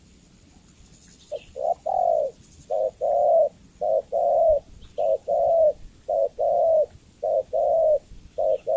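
Spotted dove cooing: a steady run of about seven two-part coos, each a short note followed by a longer one, roughly one a second, starting about a second in.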